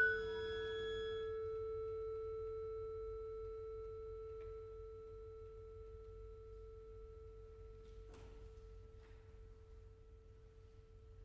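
A single bell-like metallic tone, the last note of a chamber-ensemble piece, left ringing alone after the ensemble cuts off and slowly dying away. A faint rustle or two comes from the hall about four and eight seconds in.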